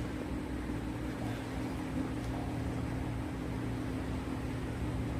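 Steady mechanical hum with a constant low drone and a faint hiss, unchanging throughout.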